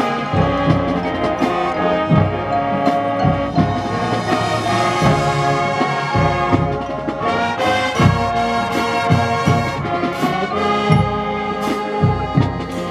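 Marching band playing: brass (trombones and trumpets) sounding sustained chords over regular drum hits.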